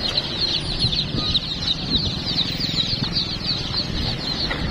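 A bagful of young chicks peeping continuously, many rapid high cheeps overlapping, over a low steady engine rumble.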